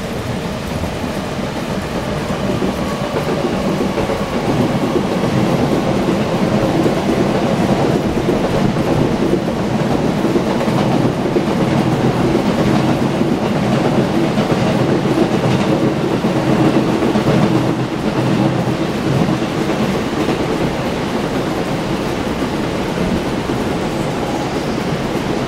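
A train passing on the rails through heavy rain. It grows louder over the first few seconds, holds, and eases off after about eighteen seconds, over a steady hiss of rain.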